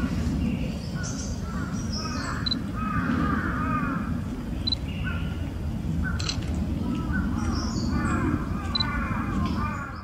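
A young male Narcissus flycatcher sings softly in short, repeated phrases of chirps and brief high pips, with a steady low rumble underneath.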